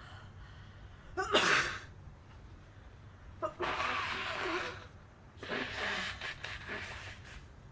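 A girl sneezing: one sharp, loud sneeze about a second in, then two longer, breathier bursts, the last broken into several short strokes.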